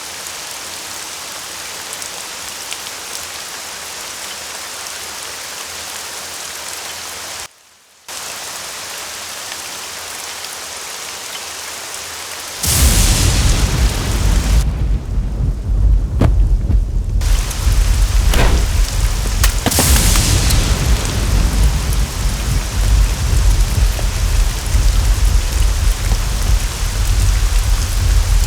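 Rain sound effect: a steady hiss of rain that cuts out once for a moment. About halfway in it gives way to a louder thunderstorm, heavy rain with a deep rumble of thunder and a few sharp cracks.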